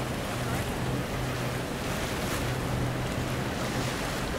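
Boat engine running with a steady low drone under wind buffeting the microphone and the wash of choppy sea water.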